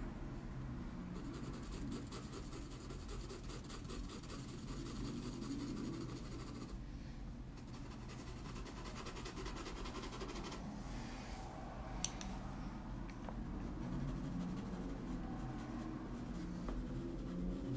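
Chalk pastel pencil scratching across toned paper in rapid short strokes, pausing briefly about seven seconds in, with a single tick about twelve seconds in and a faint steady low hum underneath.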